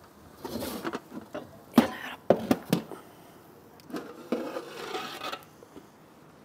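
Kitchen clatter: a few sharp knocks in quick succession about two seconds in, with low, indistinct voices before and after.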